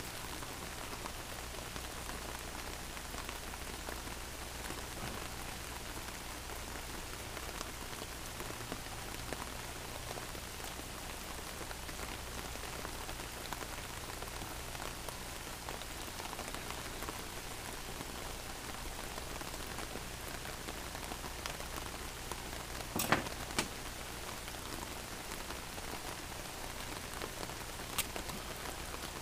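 Steady rain falling on an umbrella overhead, an even hiss, with a few sharp clicks near the end.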